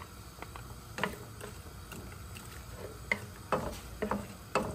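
Chopped onions landing in a lightly oiled nonstick frying pan and being pushed around with a wooden spatula: scattered light taps and scrapes, a few of them close together in the last second and a half.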